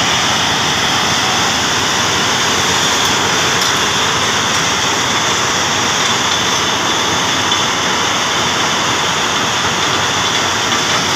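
Jaw crusher and belt conveyors of a stone-crushing plant running together: a steady, loud mechanical din.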